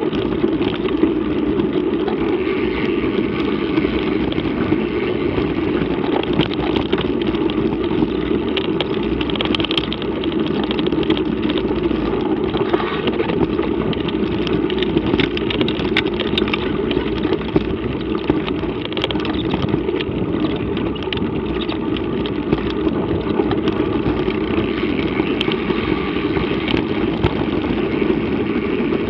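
Steady rushing wind noise on a bike-mounted action camera as a mountain bike rolls over a rough dirt trail, with many small knocks and rattles from the bumps coming through the mount.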